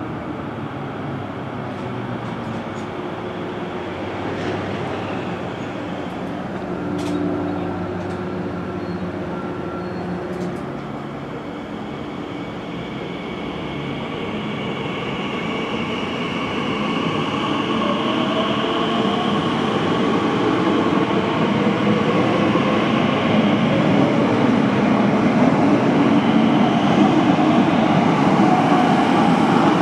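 Class 345 electric train: first it runs into the platform with a steady low hum. Then it pulls away, its traction motors whining in rising tones as it accelerates, with the running noise growing steadily louder toward the end.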